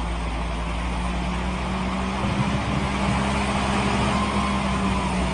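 Truck engine running with a steady low hum, under an even hiss.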